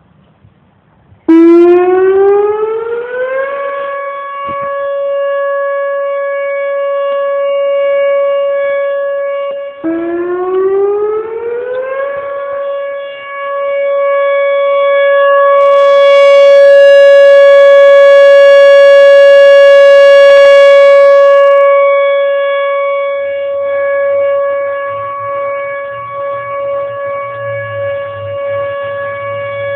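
Whelen Vortex R-4 electronic outdoor warning siren sounding its steady Alert tone: it starts about a second in, winds up in pitch and settles on one loud steady tone. About ten seconds in it dips and winds up again to the same note, swelling and fading in loudness as it holds.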